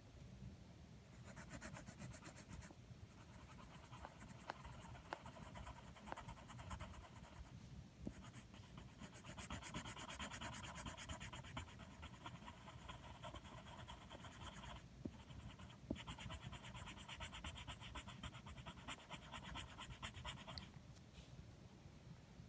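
Pencil shading on paper: rapid back-and-forth scratchy strokes in long stretches with brief pauses, starting about a second in and stopping near the end.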